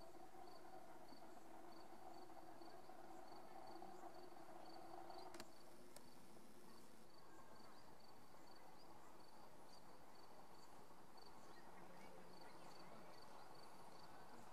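Faint meadow ambience: an insect chirping in short, high-pitched pulses about twice a second. A low steady hum stops about five seconds in, with two faint clicks around then.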